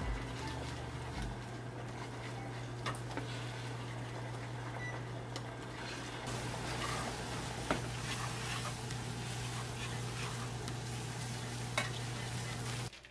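Beaten egg sizzling in a hot frying pan as wooden chopsticks stir it, with small clicks of the chopsticks against the pan. The sizzle grows louder about six seconds in, over a steady low hum.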